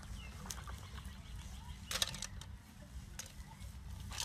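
Snails being washed by hand in a plastic basin of water: short splashes and shells knocking together, loudest about two seconds in and again at the end, over a low steady rumble.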